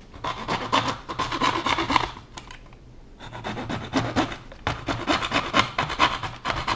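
A hand tool working at the end of a window blind's headrail to trim it, making quick repeated scraping strokes. The strokes come in two runs, with a short pause about two seconds in.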